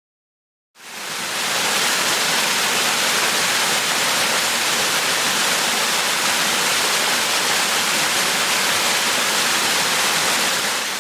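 Waterfall rushing, a steady wash of falling water that fades in a moment after the start and fades out near the end.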